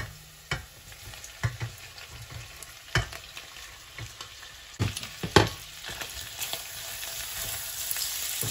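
Onions sizzling in olive oil and margarine in a steel pan as flaked hake is scraped in from a glass dish with a spatula and stirred. Several sharp knocks of the spatula against the dish and pan, the loudest about five seconds in, and the sizzle grows louder toward the end.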